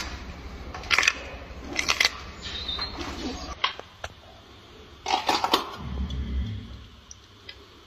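Gorilla chewing and biting food with loud wet smacks and crunches, in bursts about one, two and five seconds in.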